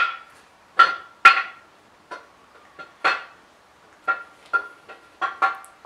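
Sharp metallic clinks, about ten at uneven intervals and each ringing briefly, as a steel camshaft is turned and worked in its bearings inside a bare 5.7 Hemi V8 block; the loudest come in the first second and a half.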